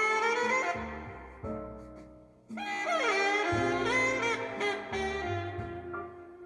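Recorded music played back through a single-ended valve amplifier: a lead melody with sliding notes over a moving bass line. The phrase fades away about two seconds in, and a new phrase comes in sharply at about two and a half seconds.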